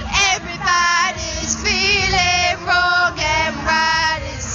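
Girls singing a tune together in short phrases.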